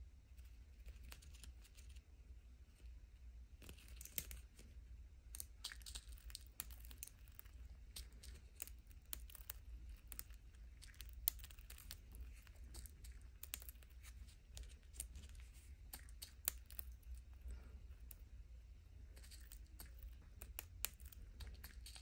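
Budgie's beak nibbling and pecking at fingers and a small plastic cup as it feeds: a quiet run of small, irregular clicks and crunches.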